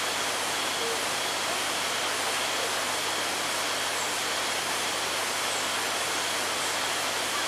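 Steady rushing noise of flowing water at the spring pool, with a faint steady high whine over it.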